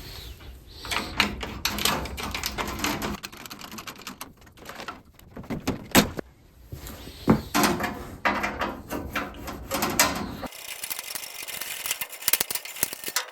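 Irregular clicks, knocks and clatter of hand tools and hardware as an old spray-bottle radiator overflow catch can is unbolted and taken off, with one sharp knock about halfway through. The last few seconds turn to a steady hiss.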